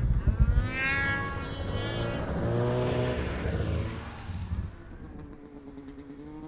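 Snowmobile engine revving up and pulling away, its pitch climbing about a second in, with a few heavy thumps at the start. The engine sound drops off sharply near the end, leaving a quieter steady engine hum.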